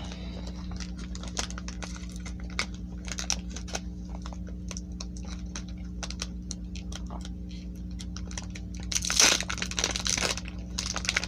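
Foil wrapper of a Pokémon trading-card booster pack being worked at with small crinkles and clicks, then torn open in a loud burst of crinkling and tearing about nine seconds in. A steady low electrical hum runs underneath.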